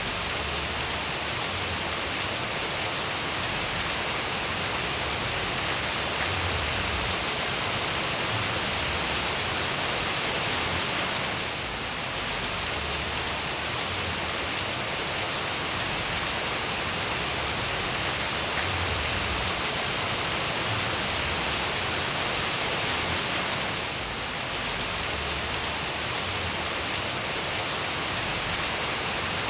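Steady, dense rainfall hissing evenly, with two brief slight dips in level.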